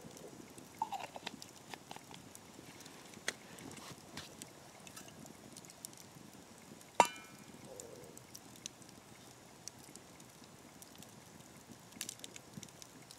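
Scattered small clicks and knocks of metal cookware being handled, with one sharp ringing metal clink about seven seconds in.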